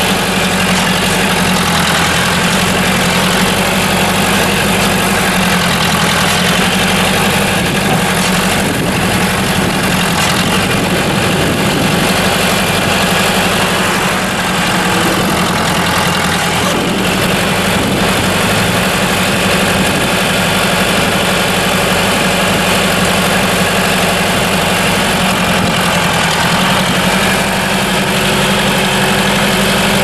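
1976 John Deere 510 backhoe's four-cylinder turbo diesel engine running at a steady idle.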